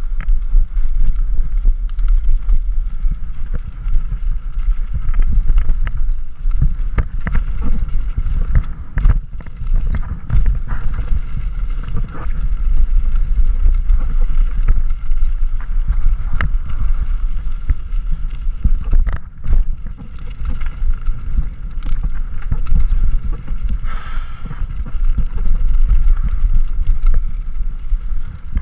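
Mountain bike riding fast down a rough dirt and rock trail: wind buffeting the camera's microphone in a constant low rumble, with frequent sharp knocks and clatter as the bike and camera mount rattle over rocks and bumps.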